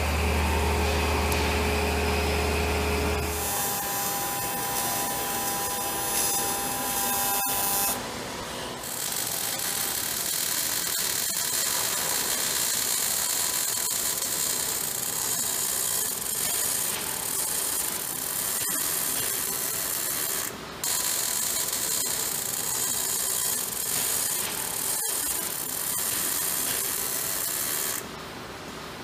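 A machining centre running with coolant spraying and a low hum for the first few seconds, then shop machinery with steady whining tones. From about eight seconds in, MIG welding: the arc's steady hiss and crackle, broken briefly twice.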